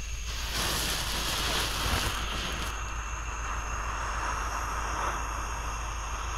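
Small ground novelty firework (a Red Rhino 'Kids Garage' police car) burning with a spark-spraying hiss that swells about half a second in, stays strong for roughly two seconds, then settles to a softer hiss as it burns out with a blue glow.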